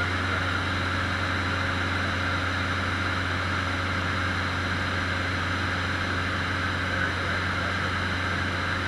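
Cessna 150's four-cylinder Continental O-200 engine and propeller running steadily in flight, heard from inside the cabin as an even, unchanging drone.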